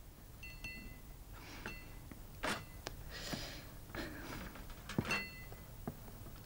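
Room-service trolley being wheeled in: tableware on it clinks faintly three times with a brief ringing, among a few soft knocks and rattles.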